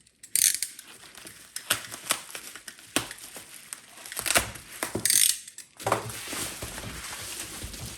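Packaging being handled and unwrapped: a run of clicks, taps and short rustles, turning into a steadier rustle near the end.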